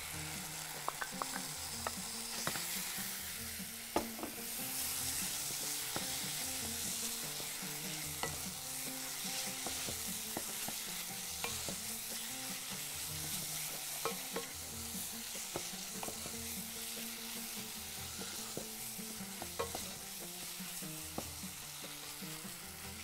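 Garlic, tomato paste and freshly added diced tomatoes sizzling in a pot while a wooden spoon stirs them, with light scattered taps of the spoon against the pot.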